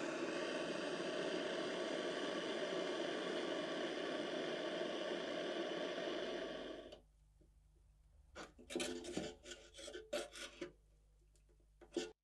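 Gas torch flame hissing steadily as it heats rusty sheet steel, cutting off about seven seconds in. A few seconds later comes a quick run of short scraping strokes on the metal.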